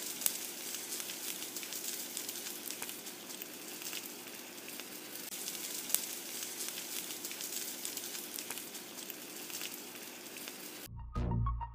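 Beef tripe and rib meat frying on a hot griddle pan: a steady sizzle with scattered small crackles and pops. Near the end the sizzle cuts off abruptly and music with a heavy bass beat starts.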